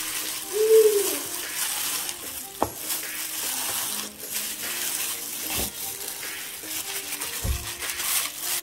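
Wet squelching of a thick yogurt-and-spice marinade as gloved hands knead it into a raw goat shoulder in a bowl, with the plastic gloves rustling. A few dull knocks of the meat or hands against the bowl.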